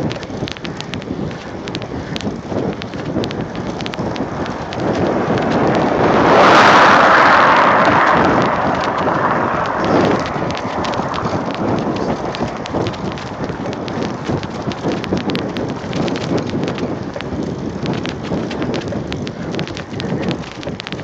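Wind buffeting a phone microphone on a moving mountain bike, with frequent rattling clicks as the bike rolls over cracked, patched asphalt. The rushing noise swells louder for a couple of seconds about a third of the way in, then settles back.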